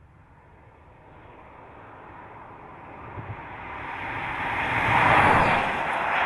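A car passing by: tyre and wind noise swelling to its loudest about five seconds in, then easing slightly before rising again.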